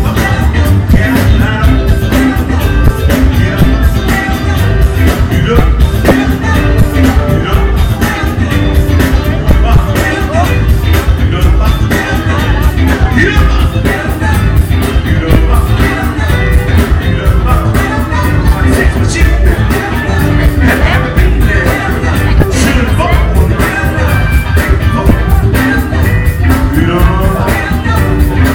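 Live funk band playing a driving groove, with drums, bass and a singing voice over the top.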